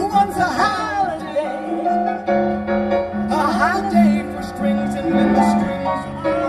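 Live orchestra playing: held notes underneath, and a melodic line on top that twice slides and wavers in quick phrases.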